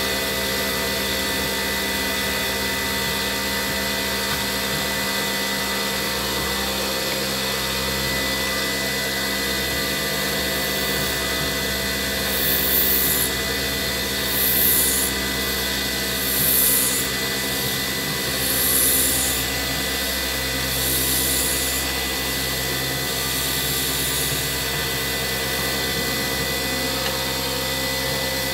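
Wood lathe running steadily, its motor humming with a thin high whine, while a turning tool cuts an epoxy pen blank into long ribbon shavings. About halfway through come five hissing cuts, each about a second long and about two seconds apart.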